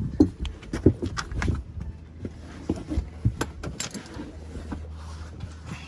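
Metal hand tools clinking and rattling in irregular small knocks as a 14 mm socket is picked out, busiest in the first two seconds.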